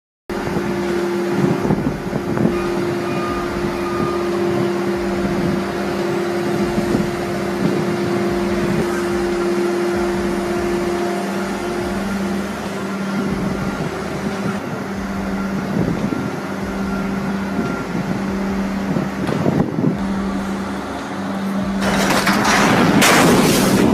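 A heavy machine's engine running steadily with a constant droning hum, joined near the end by a louder, rougher burst of noise.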